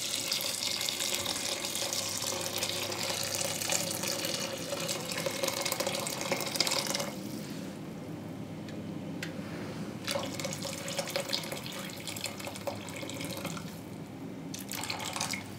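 Hot water poured from an electric kettle into a multicooker's inner bowl, filling it: a steady splashing stream for about seven seconds, then, after a pause of a few seconds, a second pour and a short last trickle near the end.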